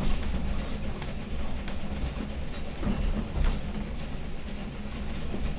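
Preserved railway carriage running along the line, heard from aboard: a steady low rumble of wheels on rails with occasional clicks over the rail joints.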